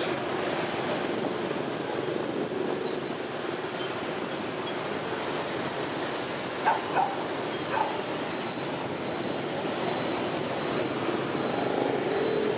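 A motorbike riding through city traffic: its engine running steadily under wind noise, with scooters and cars around it. Three short, sharp sounds stand out a little past halfway.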